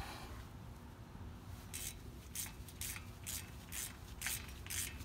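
Quarter-inch drive ratchet clicking in short bursts, about two strokes a second from about two seconds in, as it is swung back and forth to back out the brake rotor's hex retaining screw.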